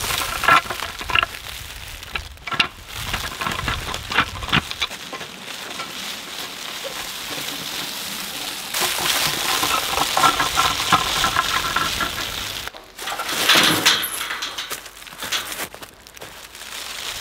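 Dry fallen leaves crunching and crackling under a heavy roll of woven wire fence as it is dragged and rolled over them, with the footsteps of the person pulling it.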